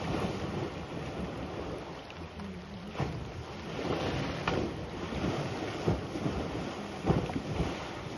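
African elephant bull thrashing and splashing in a waterhole: irregular splashes of water, several sharp ones through the middle and later part, over a steady rush of wind on the microphone.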